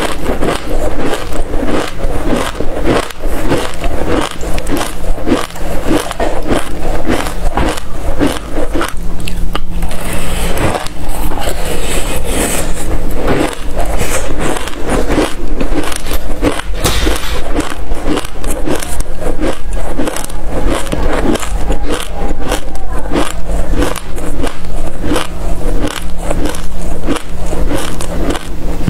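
Loud chewing and crunching of a mouthful of dry black seeds: a dense, unbroken run of crisp crackles, with a steady low hum underneath.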